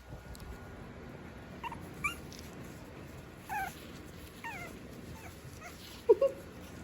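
Five-week-old Havanese puppies whimpering and squeaking in a string of short, high, falling cries, ending in two sharp, louder yips near the end.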